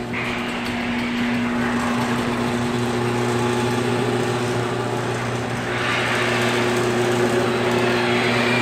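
Electric garage door opener running and raising a sectional garage door: a steady motor hum with rattling from the moving door, swelling slightly about six seconds in.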